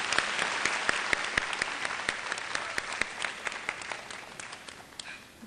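Audience applauding, a dense patter of many hand claps that fades away near the end.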